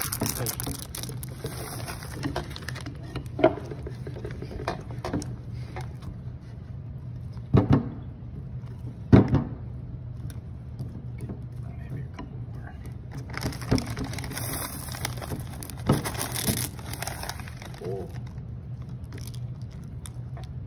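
Spatulas stirring thick brownie batter in a glass mixing bowl: irregular scrapes and knocks of the spatulas against the glass, with three louder knocks, over a steady low hum.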